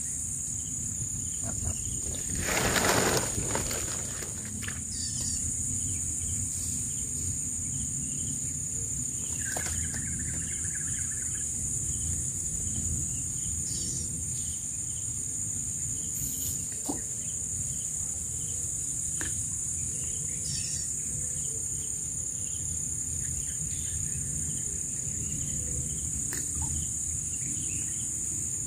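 A steady high-pitched insect chorus over a low, even rumble. About three seconds in comes a short rustle of noise, the loudest moment.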